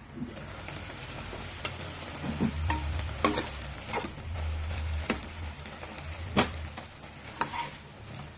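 Shrimp sizzling as they fry in oil, with sharp clicks of a utensil against the pan every second or so as they are stirred or turned.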